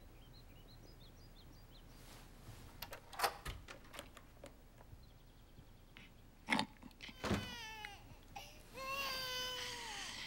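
Faint birdsong at first, then a few knocks, then an infant crying: short falling wails from about seven seconds in that run into a longer cry near the end.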